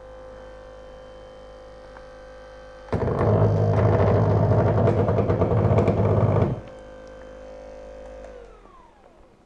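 Bob and Brad T2 massage gun running at its top speed with a steady motor hum. From about 3 to 6.5 seconds a much louder, rougher buzz comes in while the gun stands on a wooden table. Near the end it is switched off and the hum falls in pitch as the motor winds down.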